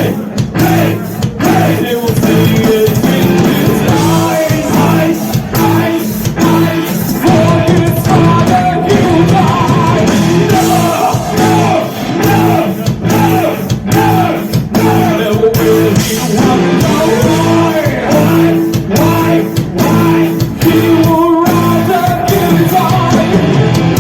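A rock band playing live: distorted electric guitars, bass and drums under a wavering sung vocal line.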